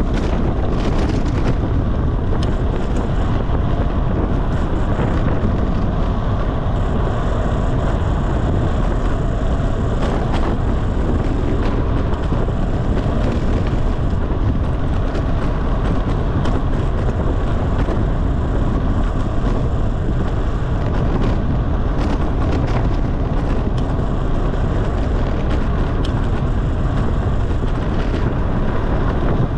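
Wind rushing over the microphone of a camera riding on a road bicycle at descending speed, mixed with tyre and road noise. The noise is loud and steady and never lets up.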